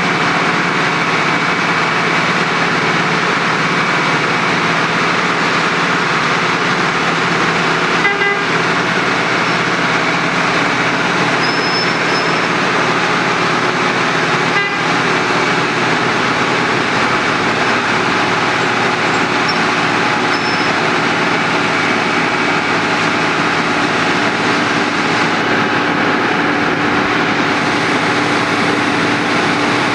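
Wirtgen W2200 cold milling machine running: a loud, steady drone of its large diesel engine and the grinding of the milling drum, with steady engine tones under it.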